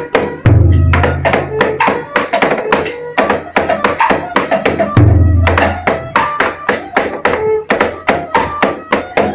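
Traditional Vietnamese ceremonial music: a steady, quick run of sharp percussion strokes, several a second, over short struck or plucked notes, with a deep drum boom about half a second in and again about five seconds in.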